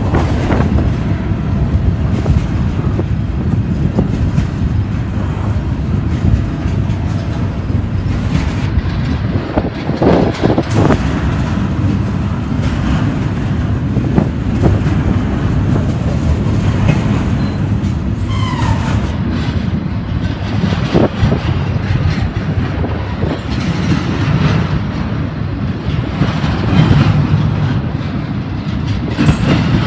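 Double-stack intermodal container train's well cars rolling past close by: a steady, loud rumble of steel wheels on rail, with clicks and knocks from the wheel trucks at the rail joints. There is a brief high squeal a little past halfway.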